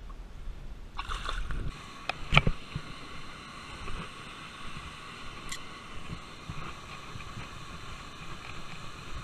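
Water rushing steadily over a concrete spillway, with a few sharp knocks about two seconds in and another midway.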